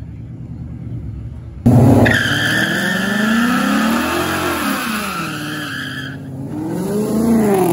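Ford Mustang GT's 5.0 V8 doing a burnout: the rear tyres squeal steadily for about four seconds while the engine revs rise and fall. The squeal starts abruptly about two seconds in, after a quieter low rumble, and stops about six seconds in as the engine revs up again.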